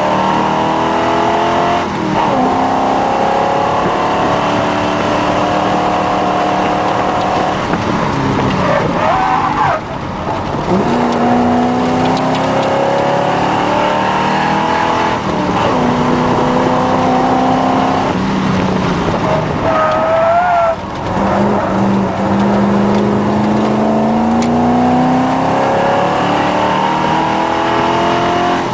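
Triumph TR7 V8's engine heard from inside the cabin, revving hard on the track, the pitch climbing and then dropping again several times at gear changes and lifts for corners. A brief wavering squeal about twenty seconds in.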